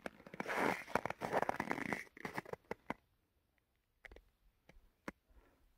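Boots crunching in packed snow: three crunching steps in the first two seconds. Then it goes nearly quiet, with a few faint scattered clicks.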